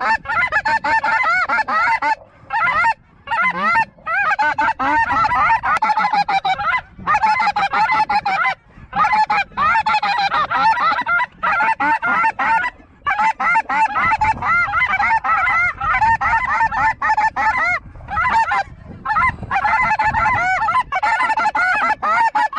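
A large flock of snow geese calling: a dense, continuous chorus of many overlapping high-pitched honks and yelps, broken by a few brief gaps.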